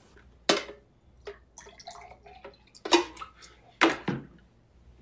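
Water poured from a glass pitcher into a drinking glass, heard as splashes and clinks. The sharpest knocks come about half a second in and again near three and four seconds.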